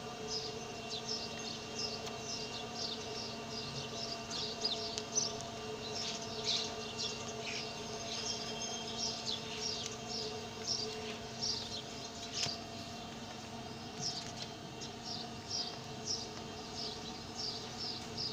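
Small birds chirping over and over in short, high, falling chirps, a few a second, over a steady low hum.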